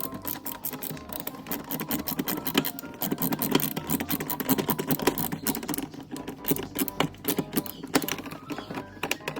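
A ratchet clicking rapidly and unevenly as a T15 Torx bit drives screws home.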